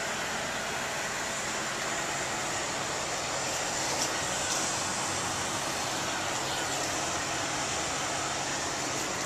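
Steady machinery drone, an even hiss with a faint low hum, with one light tap about four seconds in.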